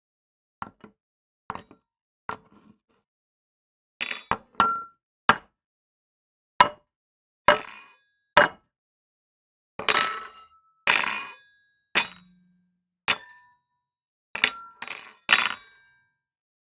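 Restaurant foley sound effect: separate clinks and clatters of dishes and cutlery, some ringing briefly, with silence between them. The hits come more often about ten seconds in.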